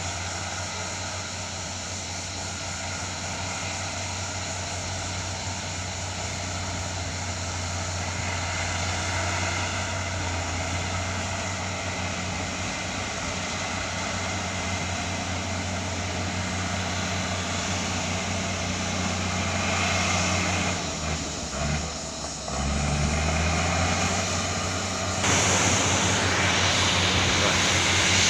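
Excavator's diesel engine running steadily with a low hum. About three-quarters of the way in, its pitch dips and then climbs again, and a louder hiss joins near the end.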